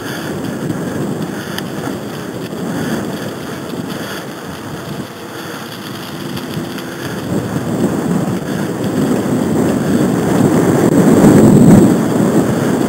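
Wind buffeting the microphone of a camera on a moving bicycle: a rough, low rumble that grows louder over the last few seconds.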